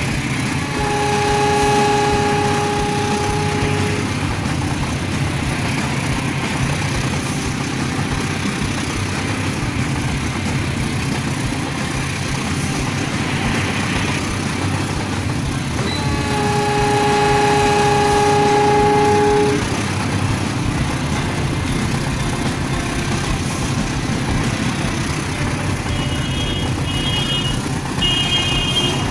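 Diesel locomotive sound: a steady engine rumble, with two long horn blasts of about three seconds each, one about a second in and one about sixteen seconds in, then a few short higher toots near the end.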